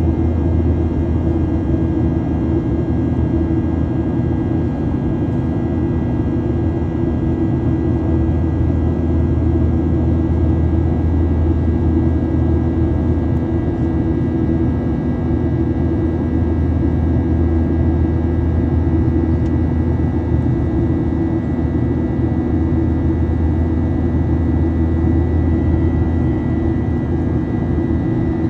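Airplane engines running steadily: an even low rumble with a steady high whine over it, the whine growing a little stronger near the end.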